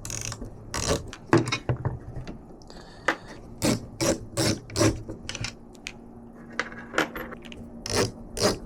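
Long case-fan screws being backed out with a screwdriver, giving a string of irregular sharp clicks and small metallic clinks as the driver and screws knock against the fan frames and case.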